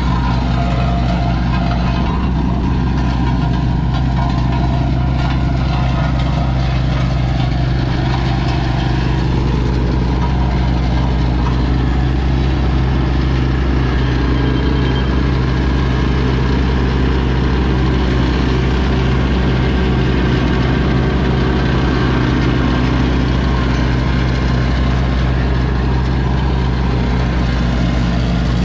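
Roller compactor's engine running steadily at a constant speed as it rolls a compacted rock base, a loud, even drone with no revving.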